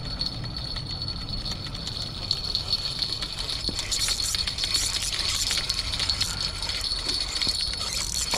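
Fishing-rod bite bell jingling rapidly and without pause, busiest about halfway through: a striped bass striking the bait, a big hit.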